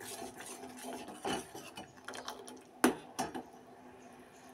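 Steel ladle stirring hot sugar syrup in a stainless-steel pot, scraping along the pot and knocking against its side, with two sharp clinks around three seconds in.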